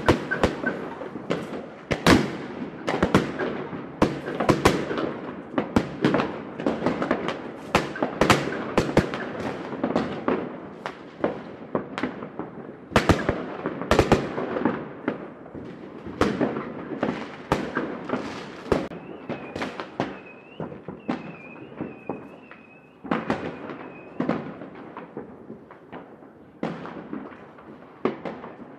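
Fireworks going off in a city: many irregular sharp bangs and crackles echoing between buildings, densest in the first half and fewer later. A thin wavering whistle sounds for a few seconds past the middle.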